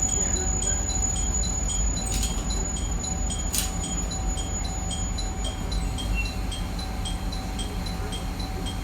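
ATS-Sx warning continuation sound in a railcar's cab: a short high electronic chime repeating about twice a second, the acknowledged-warning tone that keeps sounding until the system is reset. Under it is the train's steady running noise, with two sharp knocks around the middle.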